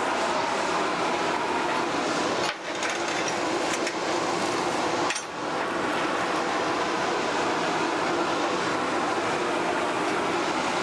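Steady, loud shop machinery noise with a few light metallic clacks, briefly dropping twice.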